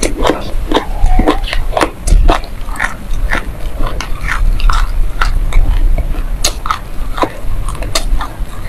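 Close-miked crunching of a mouthful of dry black sesame seeds being chewed, an irregular run of sharp crackles.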